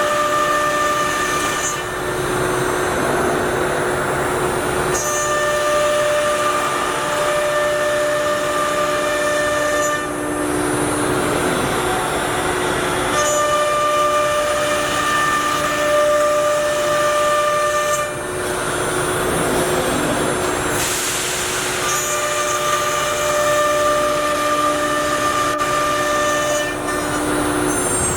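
1325 ATC CNC router spindle running and cutting: a steady high whine that gives way every few seconds to a rougher rushing noise, then returns.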